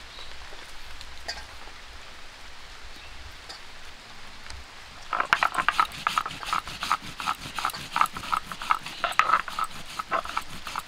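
Cumin seeds being ground on a shil-nora, a stone grinding slab with a hand-held stone muller. The grinding starts about five seconds in and goes on as quick, rhythmic scraping strokes of stone over seed.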